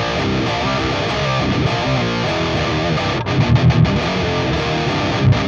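Distorted electric guitar played through the Peavey Invective tube amp head's channel two: ringing chords, then a run of short palm-muted chugs about three seconds in, with the gaps between them cut off clean by the amp's built-in noise gate.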